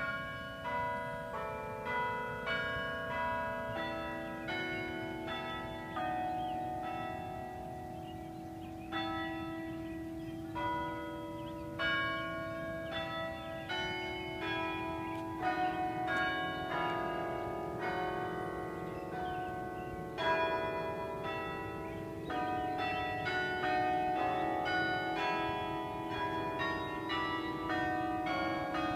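A carillon's tower bells, played from a keyboard, sounding a tune: a run of struck bell notes with several ringing at once, each starting sharply and ringing on under the next.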